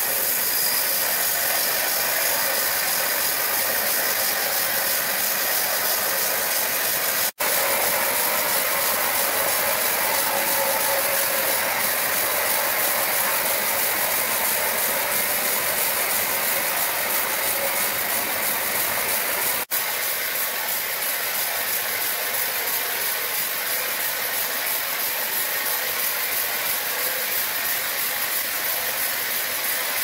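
Sawmill machinery running: a steady, hissing mechanical noise, cut off for an instant twice.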